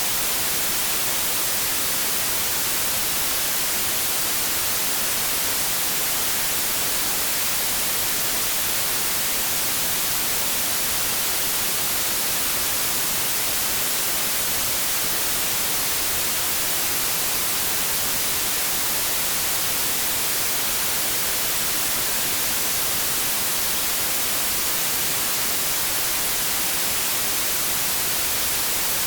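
White noise static: a steady, even hiss, strongest in the high end.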